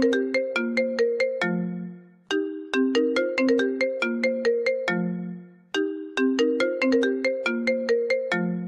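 Phone ringtone melody looping: a run of quick, sharp notes that die away, each phrase ending on a longer low note, repeating about every three and a half seconds.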